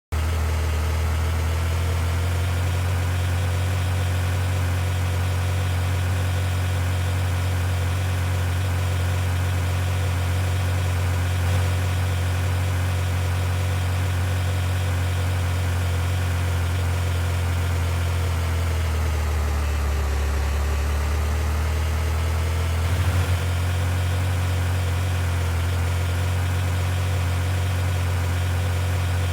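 Car engine running steadily, with a low, even hum. About twenty seconds in its pitch sags briefly and comes back up.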